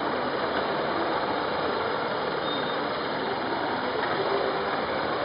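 Several police motorcycles riding slowly past one after another at close range, engines running steadily with a continuous rush of traffic noise.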